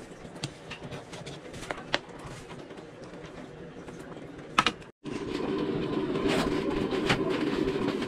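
Stew simmering in an electric wok, with a metal ladle clinking against the pan a few times as it is stirred. After a brief dropout about five seconds in, a louder steady sound continues.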